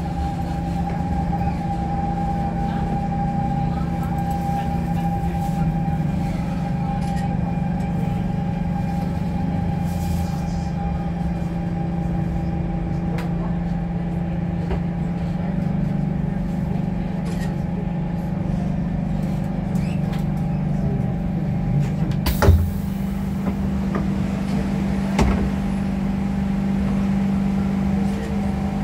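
Siemens C651 metro train, its traction motors and inverters running with steady whining tones under the rumble of the car as it slows through an elevated station. About twenty-two seconds in comes a sharp clunk with a short hiss, and a lighter knock follows a few seconds later.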